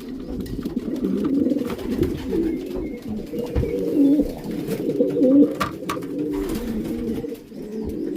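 Racing pigeons cooing in their loft, many birds at once in a continuous chorus, with a few sharp knocks in between.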